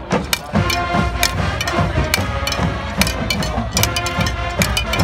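High school marching band playing: held brass chords over sharp, rapid drumline hits.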